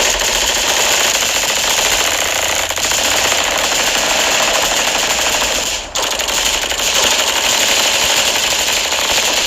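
Machine-gun fire sound effect: sustained rapid automatic fire, with a brief break about six seconds in before the burst resumes.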